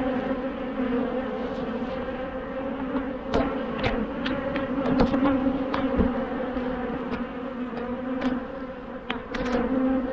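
A mass of honeybees humming over an open, full hive, a steady drone with a few short clicks and knocks scattered through it.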